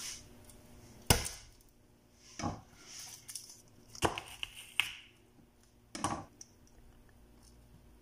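Kitchen knife knocking against a wooden cutting board while garlic cloves and a red onion are cut: about five separate sharp knocks, a second or so apart, with light rustling between them.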